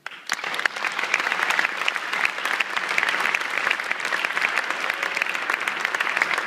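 Audience applauding, breaking out suddenly and swelling within the first half second, then holding steady as dense, continuous clapping.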